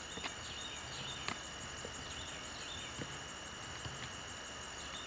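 Outdoor background heard through an old camcorder recording, with a steady hiss and thin high whine. A few faint high chirps sound near the start and again about two seconds in, along with a few soft clicks.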